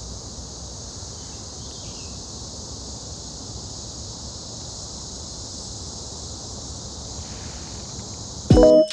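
Steady high drone of insects in tropical forest, with wind rumbling on the microphone. Piano music starts loudly near the end.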